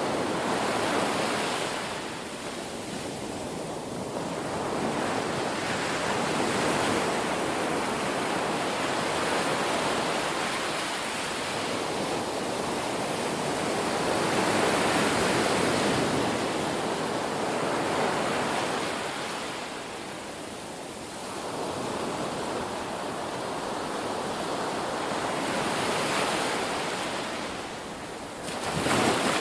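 Ocean waves breaking and washing on a shore, a continuous rush of surf that swells and eases every several seconds, with a sharp surge just before the end.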